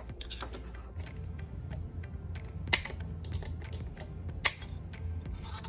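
Proto snap ring pliers clicking against a steel snap ring on a Borg Warner T18 transmission's output shaft as the ring is spread and worked off, a run of small metal clicks with two sharper ones near the middle and about four and a half seconds in.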